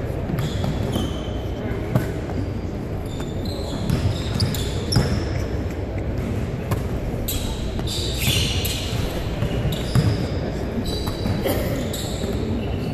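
Basketballs bouncing on a hardwood gym floor during a shooting drill, with scattered sharp thuds, short high sneaker squeaks and indistinct voices in a large gym.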